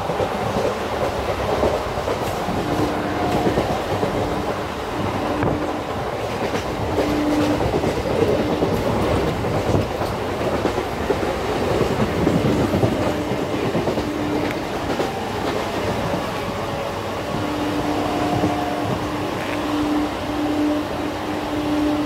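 Indian Railways EMU local train running at speed, heard from inside the coach by an open window: steady wheel-and-track rumble with scattered clicks over rail joints, and a low hum that cuts in and out.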